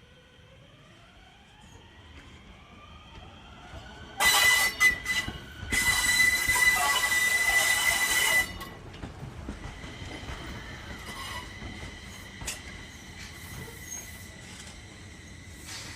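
Enshu Railway 1001F electric train set moving through the depot yard: a motor whine rises in pitch as it gathers speed, then a loud, high-pitched wheel squeal lasts about four seconds from around four seconds in. It eases to a fainter squeal with occasional clicks from the wheels on the track.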